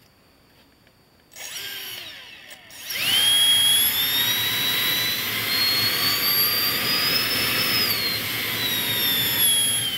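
Balanced 12-blade electric ducted fan driven by a 2600 kV outrunner motor, spinning up after about a second and a half and then running at speed with a high whine that slowly climbs, drops back a little near the end, and starts to wind down at the very end.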